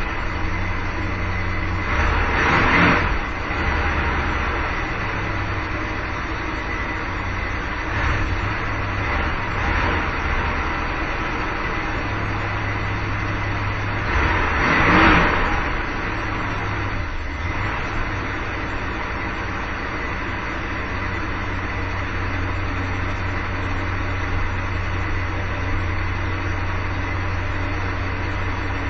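A 1978 Dodge Tradesman 4x4 van's engine running steadily at idle shortly after a cold start, having sat unstarted for three to four months, swelling louder briefly twice, about three seconds in and near the middle.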